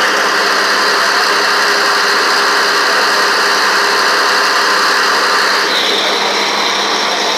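A passenger ferry's engine running steadily, heard on board with a dense hiss of water and wind over it that eases slightly near the end.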